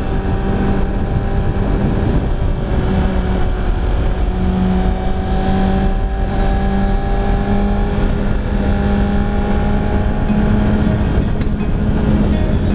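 Kawasaki Ninja ZX-6R 636's inline-four engine running at a steady cruise, its note creeping slightly higher, with wind rushing over the rider's helmet.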